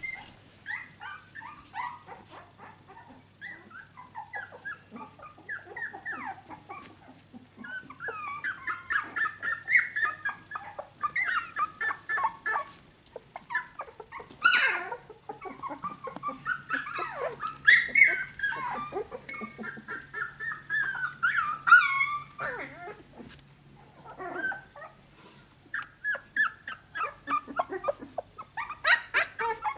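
Finnish Lapphund puppies two to three and a half weeks old whimpering and yipping in a run of short high calls, busiest in the middle with one sharp yelp about halfway through and a quieter spell after it.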